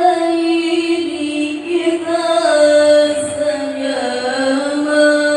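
A single voice chanting Quran recitation in a melodic tilawah style, drawing out long held notes with wavering ornaments that step gradually down in pitch.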